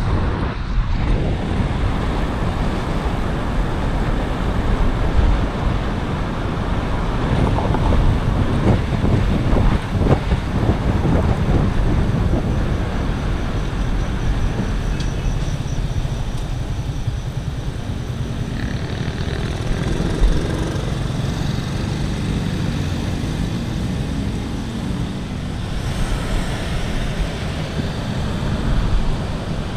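Steady city road traffic noise from passing cars and motor vehicles, heard from a moving bicycle.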